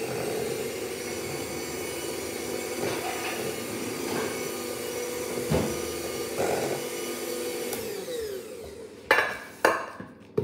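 Electric hand mixer running steadily, its beaters churning cupcake batter in a bowl; about eight seconds in it is switched off and winds down, followed by two sharp knocks.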